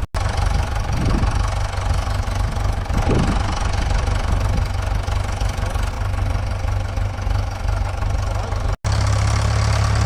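Engine of the vehicle moving the log, running steadily with a heavy low rumble. Near the end the sound breaks off for an instant and comes back with a stronger low rumble.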